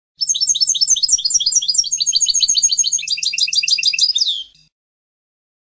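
European goldfinch singing one phrase of rapid, repeated twittering notes, the pattern changing about three seconds in and ending on a falling note.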